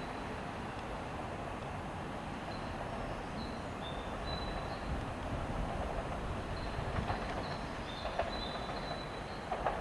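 500 series Shinkansen pulling out of the station, a steady rail running noise that grows a little louder about halfway through. Sharp wheel clicks over rail joints or points come in during the second half.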